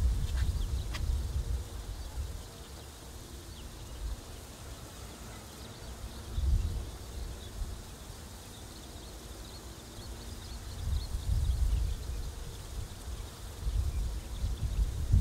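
Wind rumbling on the microphone in uneven gusts, strongest just before the start, about six and a half seconds in, and again in the last few seconds, with faint high chirps in the background.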